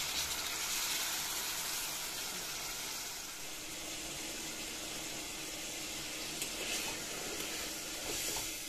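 Steady hiss of a fish curry sizzling in a kadai on a gas flame, with a couple of faint clicks near the end.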